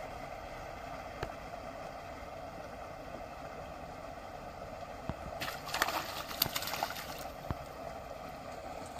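A hooked rohu thrashing and splashing at the water's surface, in a burst of about two seconds a little past halfway through, over a steady background hiss.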